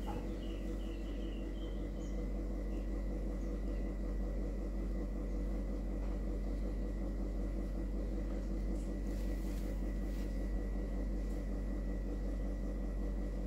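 Steady background hum with a thin, high, constant whine over it. A few faint high chirps come about half a second in.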